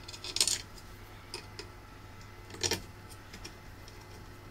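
Small metal screws clicking and rattling as they are handled and started by hand into the corner holes of a 3D-printed fan mount: a quick cluster of clicks about half a second in and a single louder click a little under three seconds in.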